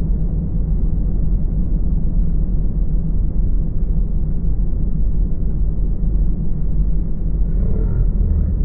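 Tugboat's engine running steadily, a loud, even low rumble heard from inside the boat's cabin while under way.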